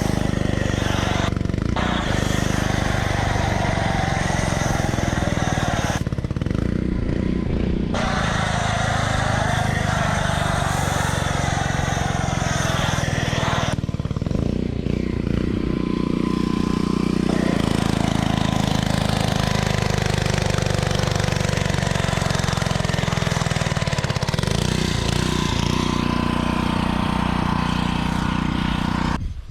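Pressure washer running steadily while spraying through a foam cannon, a constant motor hum under the hiss of the spray. The spray stops briefly a few times, at about six to eight seconds in and again around fourteen to seventeen seconds, while the motor hum carries on.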